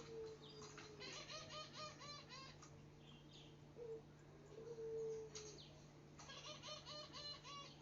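Birds calling: two quick runs of repeated chirping notes, several a second, with a few longer, lower held notes between them over a faint steady hum.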